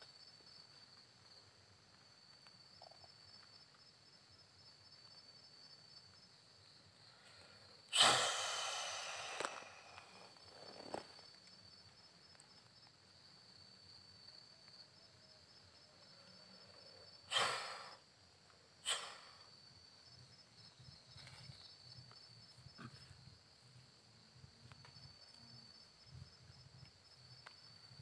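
Crickets trilling steadily at night, a faint high continuous chirr. Three short, loud, breathy rushes of air break in, the first and longest about 8 seconds in and two more near 17 and 19 seconds.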